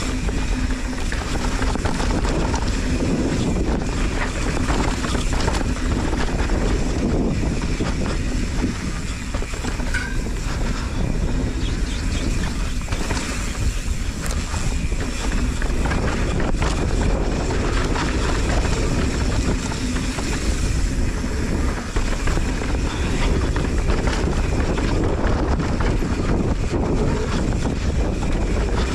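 Wind buffeting an action camera's microphone during a fast mountain-bike descent, over the steady rumble of tyres on a dirt and rock trail. Constant small clicks and rattles come from the YT Capra full-suspension bike jolting over bumps.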